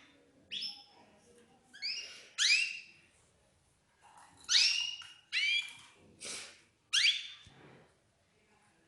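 Canaries calling: a string of short, rising, whistled chirps, about eight of them at uneven intervals.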